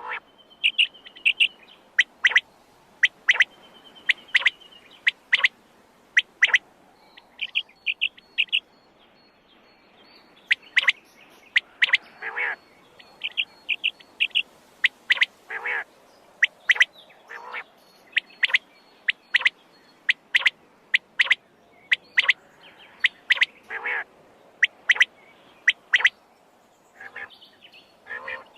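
Quail calling over and over: short, sharp call notes, often in quick groups of two or three, with a few softer, longer notes between.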